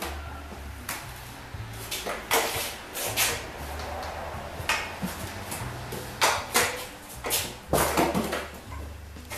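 Irregular knocks and clatter of tools and equipment being lifted down and moved about, including a plastic electric leaf blower, with a cluster of sharper knocks in the last third.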